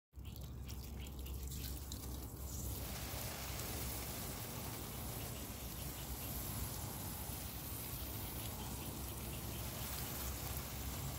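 Water spraying from a hose onto a dense bed of leafy vegetables, a steady spray of droplets on the leaves that grows fuller about three seconds in.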